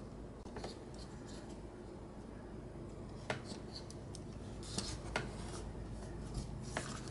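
Plastic parts of a Transformers Generations Wheelie action figure clicking and rubbing as they are turned by hand into robot mode: a handful of sharp, separate clicks over faint room hum.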